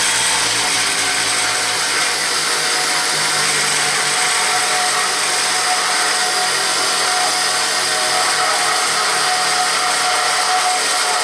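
Bench grinder running steadily at full speed after switch-on: an even, loud whine with a high hiss and a low hum underneath.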